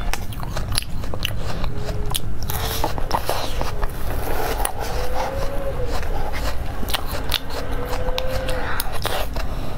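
Close-miked eating sounds: a knife cutting and scraping through soft cream cake against the plate, with many sharp mouth clicks while chewing.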